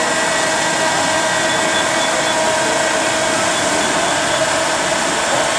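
Small electric fan of a model firefighting fan trailer running steadily while spraying water mist: an even whir with a thin steady whine.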